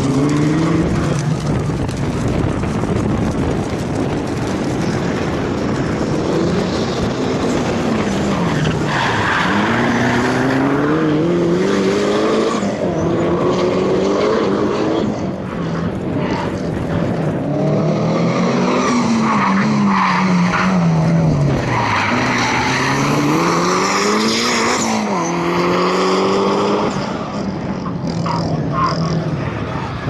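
Mitsubishi Lancer Evo V rally car's turbocharged four-cylinder engine revving hard at full throttle, its pitch climbing and dropping back again and again through gear changes and corners. Tyres skid and squeal as the car slides through the turns.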